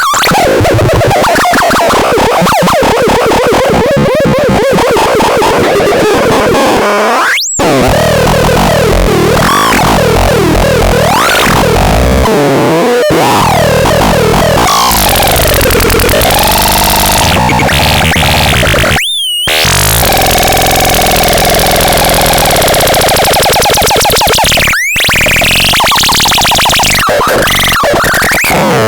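Loud, harsh electronic synthesizer noise: warbling, sliding pitches over a buzzing low drone, with three brief cut-outs.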